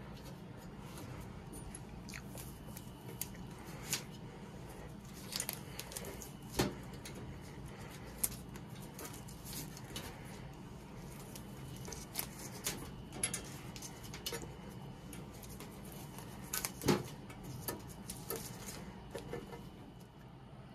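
Scattered small clicks and taps from handling, over a steady low hum.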